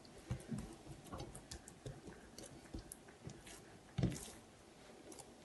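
Fingertips pressing and dimpling soft, buttered bread dough in a glazed earthenware dish: quiet, irregular squishes and small clicks, with one louder knock about four seconds in.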